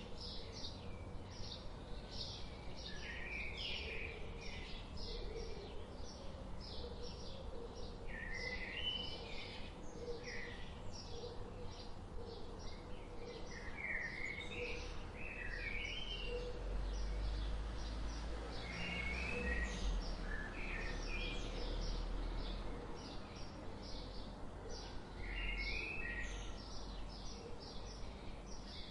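Several forest birds chirping and singing: a steady stream of short, high chirps, with a warbled phrase every few seconds. A low rumble swells in the background about halfway through.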